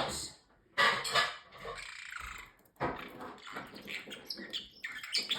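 Parrotlet chattering and muttering in garbled, speech-like sounds without clear words, in two stretches of a second or two each.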